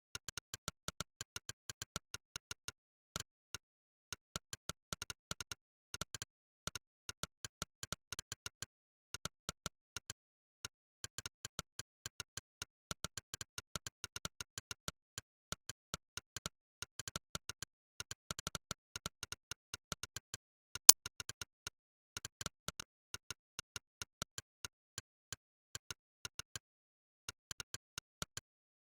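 Monkeytype's 'click' keypress sound effect: one synthetic click per keystroke, in a quick, uneven typing rhythm of several clicks a second broken by short pauses. One click about 21 seconds in is much louder than the rest.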